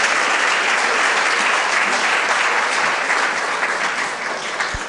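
Audience applauding: many hands clapping in a steady patter that thins out near the end.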